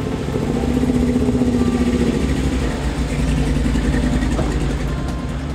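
Full-size Ford Bronco's engine pulling under throttle as the truck drives through a mud hole and passes close by. The note swells a little about a second in, then holds steady.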